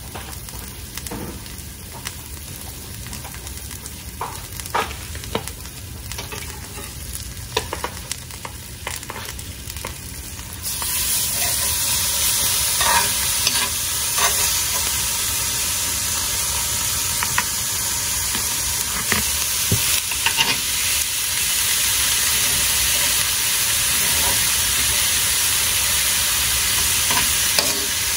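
Onion rings sizzling gently in oil in a frying pan, with scattered clicks of a utensil. About ten seconds in the sizzle jumps much louder and stays loud as ground beef patties hit the hot pan, with taps and scrapes of a metal utensil against the pan.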